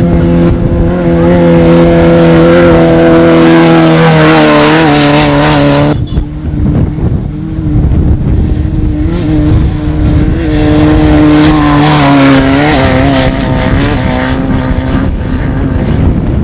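Off-road desert race vehicle engine running hard, its pitch holding and then stepping down. About six seconds in, the sound cuts abruptly to another engine passage that revs up and down with a noisier rush.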